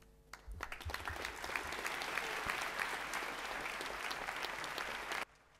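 Audience applauding: many hands clapping, building up within the first half second, holding steady, and then cutting off suddenly near the end.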